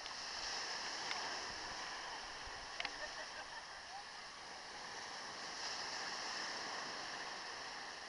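Steady hiss of surf washing on a beach, with a few faint clicks.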